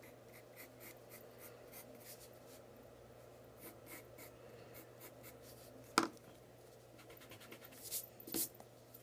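Wooden graphite pencil scratching on paper in quick, short, repeated strokes, faint. A single sharp tap comes about six seconds in, and two louder scrapes near the end.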